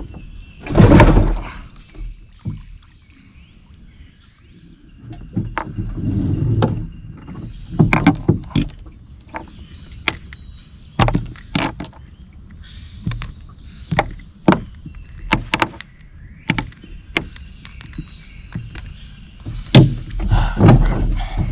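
Irregular knocks and clunks of gear against the hull of a small one-man boat. The loudest clunk comes about a second in.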